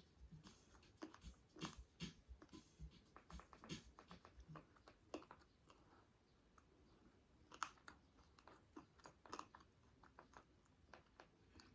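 Faint close-up eating sounds: irregular chewing and crunching with small clicks and smacks, a few stronger crunches along the way.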